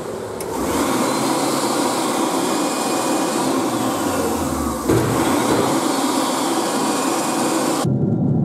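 Electric hand dryer blowing hard on a wet paper boarding pass. It starts about half a second in, dips briefly about five seconds in and comes straight back. Near the end it cuts to the low steady drone of a jet airliner cabin in flight.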